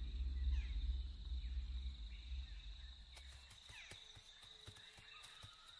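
Forest ambience: an insect trilling steadily at one high pitch, with a few faint bird chirps and some light ticks. A low rumble fades out over the first half.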